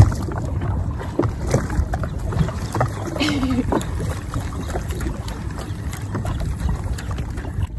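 Sea-Doo Fish Pro jet ski running on open water: a steady low rumble with water slapping and clicking against the hull, and wind buffeting the microphone.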